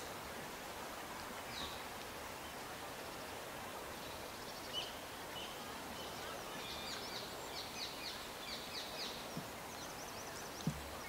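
Open-air ambience with a steady background hiss and small birds chirping, a quick run of chirps in the middle, and a soft low thump near the end.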